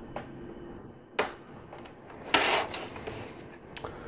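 Plastic LEGO Technic parts being handled: a sharp click about a second in, a short rustle of pieces in the middle, and a faint click near the end.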